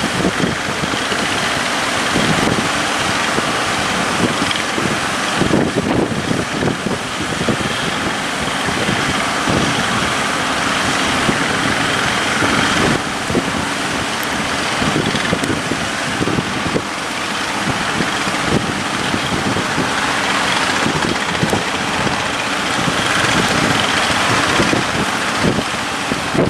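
Fishing boat's engine running steadily, half buried under wind buffeting the microphone and the rush of sea water.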